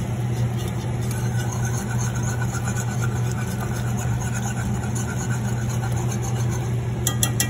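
A steady low motor hum, with a wire whisk stirring sauce in a metal pan; a quick run of sharp clinks near the end as the whisk taps the pan.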